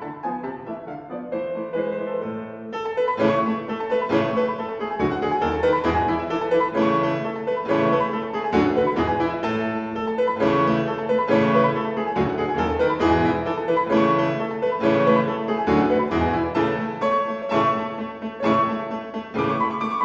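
Background music: a classical-style keyboard piece, a steady run of struck notes that grows fuller, with low bass notes coming in about three seconds in.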